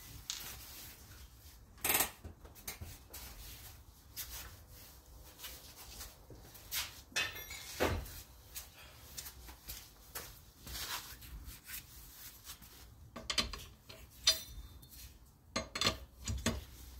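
Scattered clicks, knocks and rubs of hand work on the truck while the parking brake is set, with a cluster of metal clinks near the end as a steel four-way cross lug wrench is fitted onto a lug nut of the rear brake drum.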